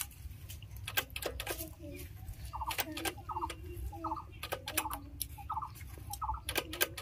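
A bird calling in short notes that repeat about every half second, mixed with scattered sharp clicks and taps, over a low steady rumble.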